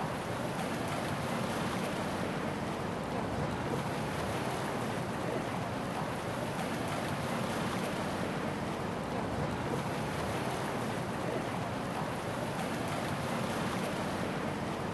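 Steady ambience of sea waves washing under a low city rumble. The hiss swells and eases every several seconds.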